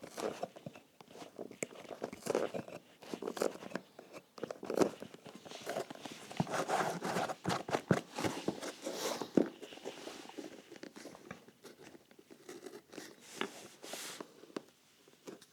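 Crumbly cork filler being dug and scraped out of a shoe's bottom between the insole and welt, giving irregular crunching, crackling and scraping with scattered clicks, busiest in the middle.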